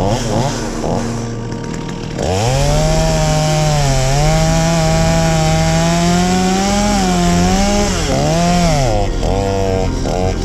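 Chainsaw revved up sharply about two seconds in and held at high speed for several seconds, its pitch wavering, then dipping and picking up again in a few short revs near the end.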